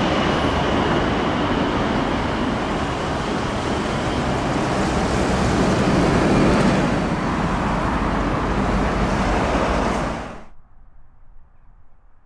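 Jet noise from a British Airways Boeing 747-400's four Rolls-Royce RB211 turbofans as it lands and rolls out: a loud, steady roar with a high whine that fades in the first seconds. The roar cuts off abruptly about ten seconds in, leaving only a faint outdoor background.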